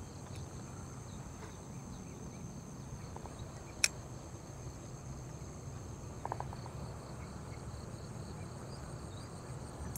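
Steady chorus of insects: several thin, high, unbroken tones. A single sharp click cuts through about four seconds in.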